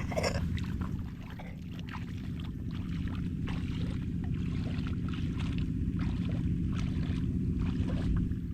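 An engine running steadily at a low, even pitch, with irregular clattering and rattling over it.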